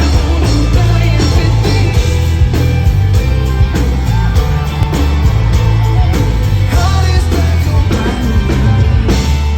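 Loud pop music with a heavy bass line and a steady drum beat.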